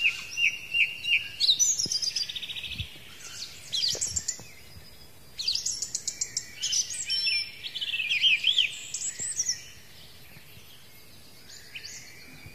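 Birds singing: quick runs of high chirps, repeated notes and trills that stop about ten seconds in, with a faint call near the end.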